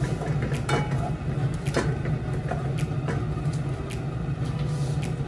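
Diced onion sizzling in melted butter in a saucepan, with a few sharp knocks of a wooden spatula against the pan and bowl, over a steady low hum.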